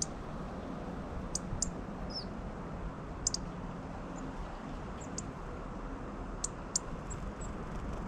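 Small songbirds giving short, high, thin call notes, about a dozen scattered singly and in pairs, over a steady low background noise.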